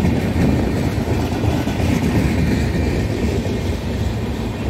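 Indian Railways passenger coaches rolling past, a steady loud rumble and clatter of wheels on the rails.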